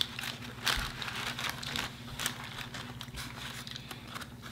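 Eating noises of burgers and fries handled on paper wrappers: irregular crinkles and crackles, busiest in the first couple of seconds, over a steady low hum.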